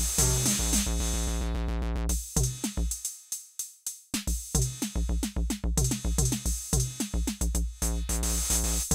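Roland TR-06 Drumatix drum machine playing an electronic beat of kick and hi-hats, mangled by its effects. Early on the beat turns into a fast buzzing repeat, then nearly drops out for about a second before the full pattern comes back.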